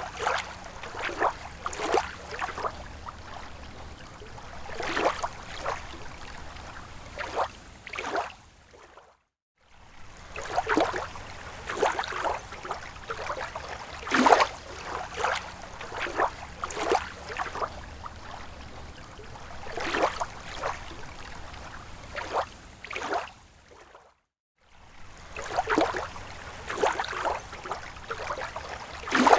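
Water sloshing and splashing in irregular splashes, with two brief gaps of silence, about nine and twenty-four seconds in.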